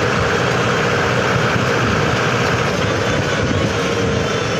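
Mahindra tractor's diesel engine running steadily while the tractor drives along the highway.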